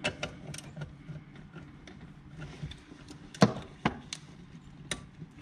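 Scattered clicks and knocks of a wrench and gloved hand working a nut at a car's brake master cylinder, with two sharper knocks about three and a half seconds in.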